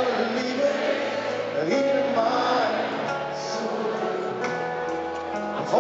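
Live acoustic pop ballad played on piano and double bass, with singing voices over the music.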